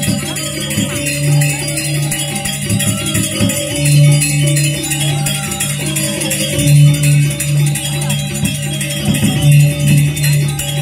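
Balinese gamelan music playing: a fast, dense high cymbal clatter over steady pitched metallophone notes, with strong low notes pulsing in short runs.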